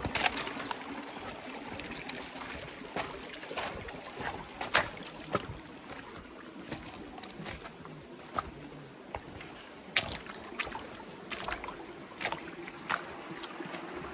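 Someone walking through forest undergrowth: footsteps and the rustle of dry leaves and brush against the body, with irregular sharp cracks and knocks, the loudest about five seconds in and again near ten seconds.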